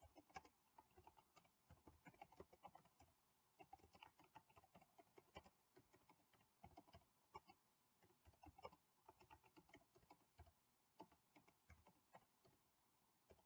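Faint keystrokes on a computer keyboard: typing in quick, irregular runs with short pauses between words.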